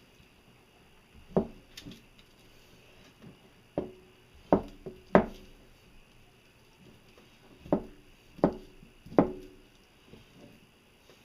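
About seven sharp knocks at irregular spacing, each ringing briefly: kitchen tools striking a board or pot while cooked taro is handled.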